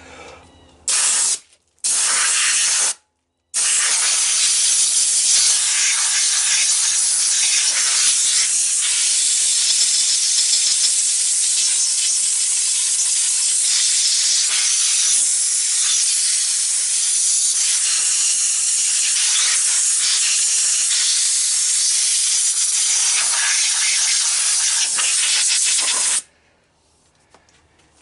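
Compressed-air blow gun blasting rust out of an ATV engine's flywheel housing: a loud hiss in two short bursts, then one long steady blast that cuts off suddenly near the end.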